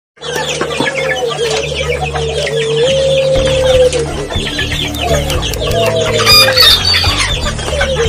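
Chickens clucking busily and a rooster crowing, mixed with music: a held, stepping melody line, with a steady low accompaniment coming in about three seconds in.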